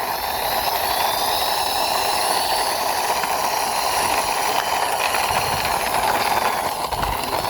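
Plastic wheels of a toy police car rolling across a hard surface as it is pushed along by hand, giving a steady rolling rumble with hiss, broken by a soft low knock near the end.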